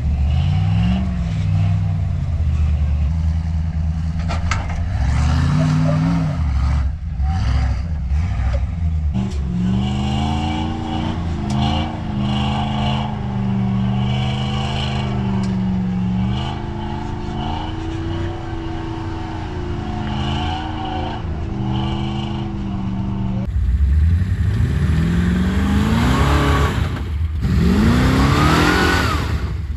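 Off-road vehicle engines revving under load while crawling up steep slickrock. The pitch rises and falls with the throttle, then climbs sharply twice near the end.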